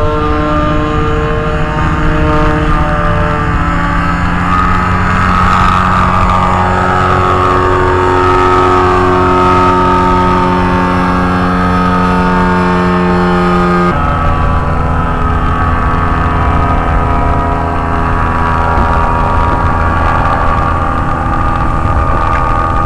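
Powered parachute's Rotax 447 two-cylinder two-stroke engine running at high power through take-off and climb-out: a loud, steady, pitched drone whose pitch drifts slowly and shifts abruptly about two-thirds of the way through.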